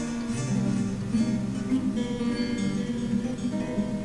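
Background music: an acoustic guitar played with a mix of picked notes and strums.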